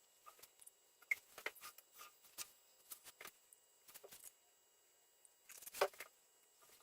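Faint, scattered clicks and light scrapes of hand work on a brake master cylinder being bench bled, with one louder scrape a little before the end.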